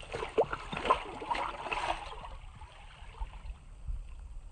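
Smallmouth bass dropping back into a hole in the ice, splashing and sloshing the water for about two seconds before it settles.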